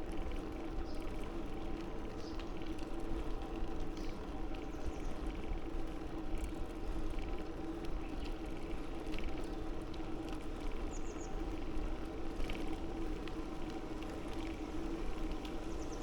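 Steady rolling noise of a bicycle on the road, a constant hum with low rumble, with a few faint short chirps over it.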